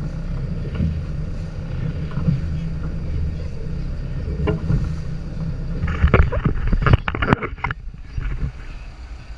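Steady low rumble aboard a small fishing boat at sea, then a burst of sharp knocks and clatter about six seconds in, after which the rumble drops off.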